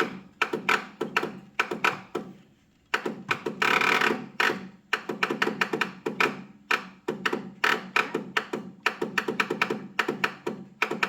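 The electric starter cranks the 1998 Kohler Command 16 hp mower engine in a rhythmic chug, about three strokes a second, and the engine does not fire. Cranking stops briefly about two seconds in, then resumes.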